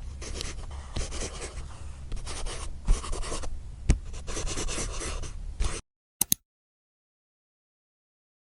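Close scratching and rubbing with sharp ticks, like a pen writing on paper, stopping about six seconds in; two short clicks follow, then dead silence.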